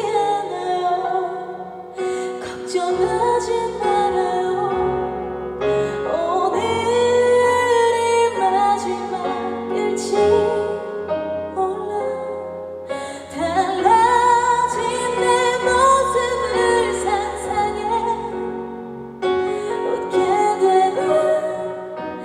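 A female singer singing a song live, with instrumental accompaniment.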